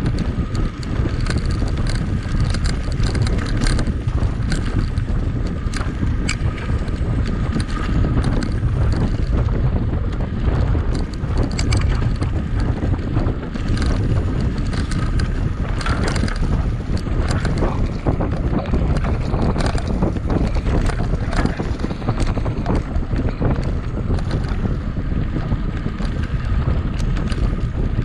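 Wind rushing over the microphone of a mountain bike moving at speed, with the bike rattling and clicking steadily as it rides over rough trail.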